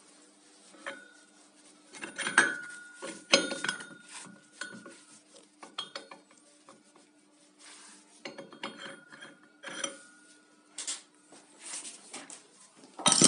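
A steel worm shaft knocking and clinking against the bore of a bronze cream-separator part held in a lathe chuck, in scattered knocks that each leave a short metallic ring. A louder clatter comes right at the end.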